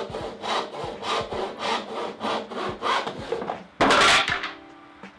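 Hand saw cutting through a pine board in rhythmic push strokes, a little under two strokes a second. About four seconds in comes one louder, brighter rush of sound, and then it quietens.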